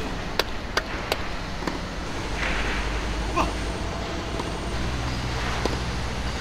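A tennis ball bounced on the court before a serve: about four sharp knocks under half a second apart in the first two seconds, over a steady low outdoor rumble.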